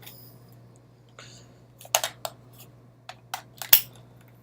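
Irregular sharp plastic clicks and taps, about half a dozen, from setting up an Ethernet cable tester: cable plugs seated in its ports and its controls handled. The loudest click comes near the end.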